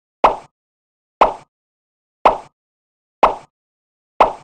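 A short pop-like editing sound effect repeated about once a second, five times, each with a sharp start fading within a quarter second, with dead silence between. It marks each item popping into place in a stop-motion build-up.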